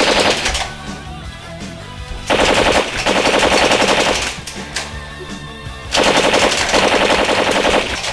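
Machine-gun fire sound effect in three bursts of rapid shots: a short one at the start, then two of about two seconds each, with rock music running underneath.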